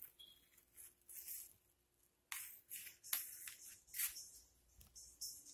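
Faint, brief rustles and crinkles, about eight of them with quiet gaps between: a hand in a plastic food-service glove handling and pressing a filled torta roll on a plate.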